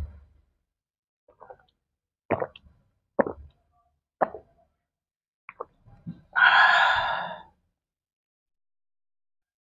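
Close-up swallowing while drinking water from a glass: short gulping clicks about a second apart, followed by a loud breathy exhale lasting about a second, like an "aah" after the drink.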